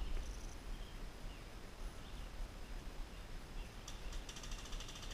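Small birds chirping in woodland over a steady low rumble. A rapid, buzzy trill starts about four seconds in and runs to the end.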